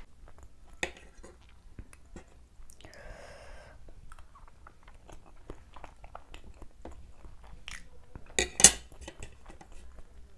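Close-miked chewing of a mouthful of Maggi noodles and boiled egg, many small wet mouth clicks. A metal fork clinks against a ceramic plate, loudest in two sharp knocks about eight and a half seconds in.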